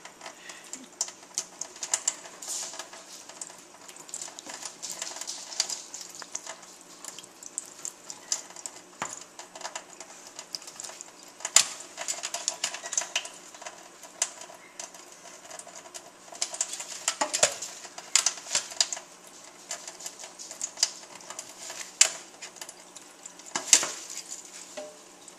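Hyacinth macaw bathing under a thin stream from a kitchen tap in a stainless steel sink: steady running water with an irregular patter of splashes as she ruffles and shakes her wet feathers, and a few louder splashes as she flaps.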